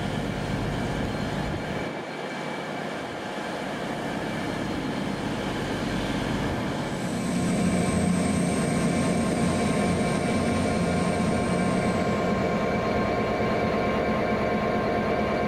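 A train running, a steady rumble with several held humming tones. About seven seconds in it grows a little louder and a thin high whine joins, fading out some five seconds later.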